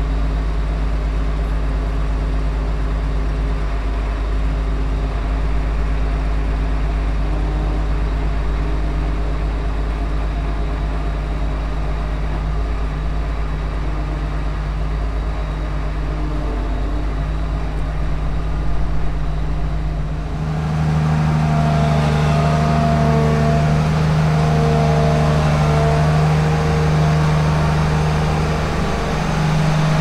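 Case IH 2388 combine's diesel engine running steadily with a deep hum. About two-thirds of the way through the sound changes abruptly to a louder engine note with a higher, stronger hum.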